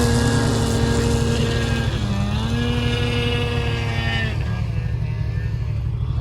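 Snowmobile engine running under throttle at a steady high pitch. The pitch dips briefly about two seconds in and recovers, then falls about four seconds in as the throttle eases off.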